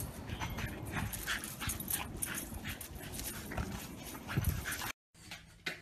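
Small dog scampering through dry fallen leaves, the leaves rustling and crunching under its paws, with a few short dog sounds mixed in. It cuts off suddenly near the end.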